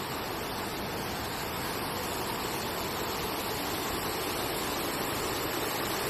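Steady rush of water pouring down the man-made Cheonggye waterfall into the stream, growing slightly louder.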